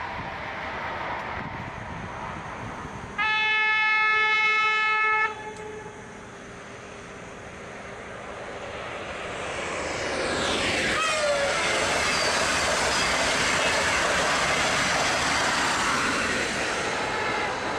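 A high-speed electric train sounds its horn once, a single steady note for about two seconds. Then a Sapsan high-speed train grows louder and passes at speed, with a falling whine as it goes by, followed by a loud steady rush of wheels and air.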